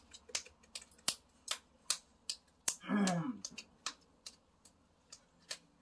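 Spoons clicking and tapping against plates as people eat: irregular sharp taps, a few a second, with a brief voice about three seconds in.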